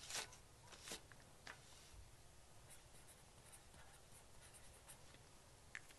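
Faint scratching of a marker writing on a small plant label, in short strokes, the clearest in the first second and a half.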